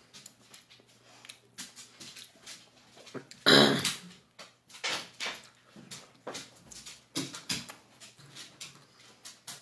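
Close eating sounds of lobster meat: chewing, lip smacks and small clicks of shell being picked apart by hand. A much louder sound lasting about half a second comes about three and a half seconds in.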